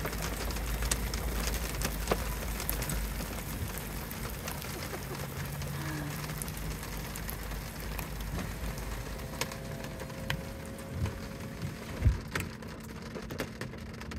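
Rain falling on wet pavement and on the car, a steady hiss with scattered sharp ticks of single drops and a few low thumps near the end.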